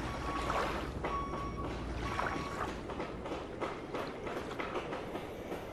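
Distant vehicle reversing alarm beeping about once a second, the beeps dying away after about two and a half seconds, over a steady rushing background with scattered clicks.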